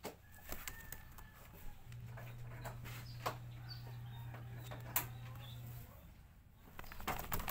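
Fingers working through a dog's fur to pick out fleas, making close rustles and sharp clicks, the loudest about five seconds in. Faint bird chirps sound in the background, and a low steady hum runs through the middle seconds.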